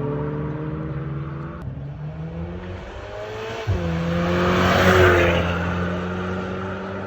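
Exhaust note of a 2022 VW Golf R Mk8's turbocharged 2.0-litre four-cylinder, running at fairly steady revs. The note changes abruptly about one and a half seconds in and again near four seconds, then swells with a rush of noise about five seconds in before easing back.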